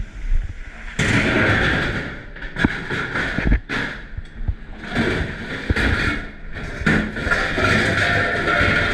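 Water spraying hard in a commercial dish pit, starting suddenly about a second in and cutting out and back on several times, with dishes and trays knocking and clattering throughout.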